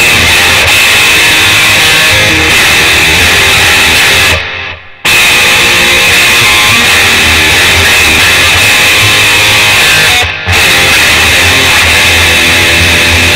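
Mexican-made Fender Stratocaster-style electric guitar played loud through an amplifier with a heavily overdriven tone, noodling riffs and chords. The sound breaks off briefly twice: about four and a half seconds in and about ten seconds in.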